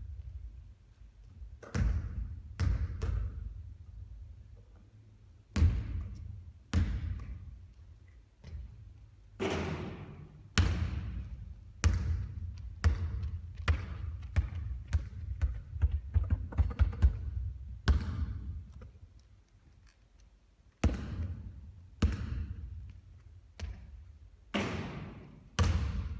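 A basketball bouncing on a hard court floor over and over as shots are taken and rebounded. The thuds come at irregular intervals, each leaving a short echoing tail.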